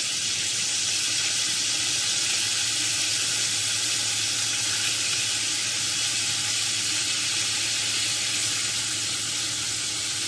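Steady sizzle of hot oil and a little water in an iron kadhai, with dried red chillies and sesame seeds frying in it, as steamed rice dumplings are laid into the pan.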